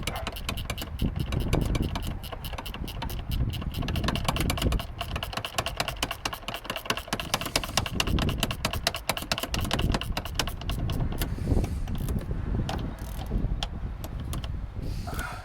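13mm ratchet spanner clicking rapidly as it is worked back and forth, tightening a strut top mount nut; the clicking runs for about ten seconds, then thins to a few scattered clicks near the end.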